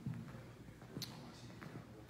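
Footsteps on a hardwood floor: a few soft steps, with a sharper click about a second in, over quiet room tone.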